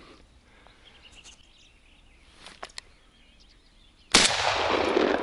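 A single shotgun shot about four seconds in, loud and sudden, followed by a long echo that fades slowly across the forest. A few faint clicks come shortly before it.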